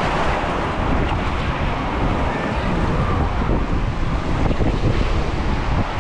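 Water rushing and an inflatable raft rumbling down a WhiteWater West raft slide, with wind buffeting the ride camera's microphone.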